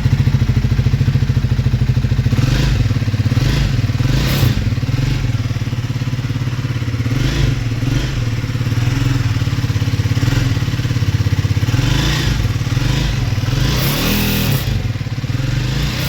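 Triumph Speed 400's single-cylinder engine running steadily, with a brief change in pitch near the end.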